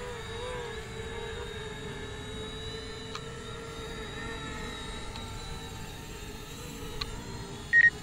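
Small quadcopter drone's propellers whining steadily in flight, the pitch wavering slightly. A short, loud high beep sounds near the end.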